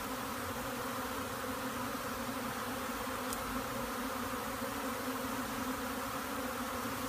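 A large swarm of honey bees buzzing, a dense steady hum.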